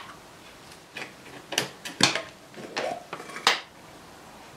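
A quick run of light clicks and clinks from small metal parts and a grease tin being handled on a workbench, about half a dozen sharp taps in two seconds or so, the loudest about two seconds in and near the end.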